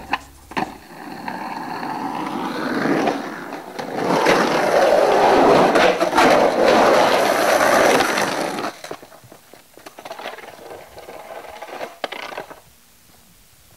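Skateboard wheels rolling over rough concrete. The sound builds to a loud rumbling scrape from about four to nine seconds in, with a few sharp clacks of the board near the start and scattered ones later.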